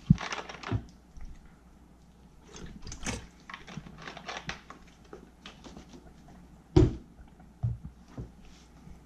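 Handling noises on a wooden desk: a crackly rustle of clear plastic as a hand moves it in the first second, then scattered small clicks and rustles, and a sharp knock on the desk about seven seconds in, with two fainter knocks after it.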